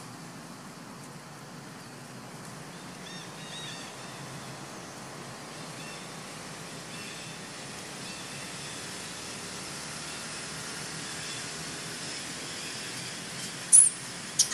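Steady outdoor background hiss with a few faint chirps about three seconds in, then one short, loud, very high-pitched squeak near the end.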